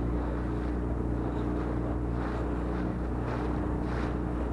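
A boat's motor running steadily under way, with water splashing and slapping against the hull in bursts as the bow meets the chop.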